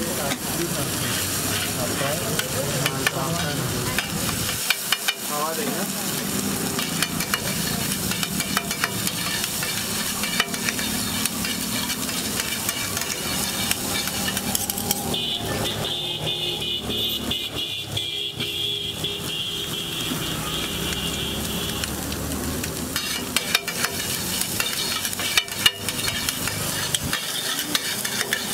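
Egg and chopped vegetables sizzling on a large flat iron griddle while metal spatulas scrape, stir and chop them, with frequent sharp clacks of the spatula edges on the iron. A steady high-pitched tone holds for several seconds around the middle.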